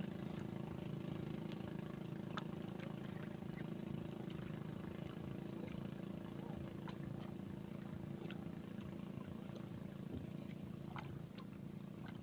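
A motor running steadily at a distance, a low even hum, with scattered faint clicks and taps.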